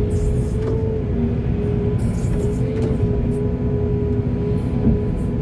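A heavy excavator's diesel engine running steadily, with a few brief bursts of hiss.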